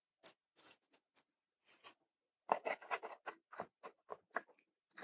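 Light clicks and taps of thin wooden case panels being handled and pressed together at their glued finger joints: a few scattered ones at first, then a quicker run from about two and a half seconds in.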